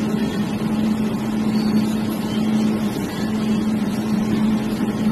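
Jewelry laser welding machine's steady running hum, with one constant low tone that briefly drops out about three seconds in.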